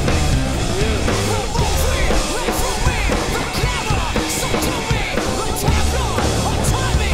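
Background music with a steady drum beat, cymbals and heavy bass, and a melody line over it.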